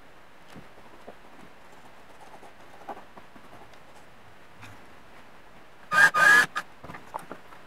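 Faint scratching and light taps of hand work on a carbon-fibre reed sheet, then about six seconds in a small drill whirs in two quick bursts as its thin bit drills into the sheet, followed by a few light clicks.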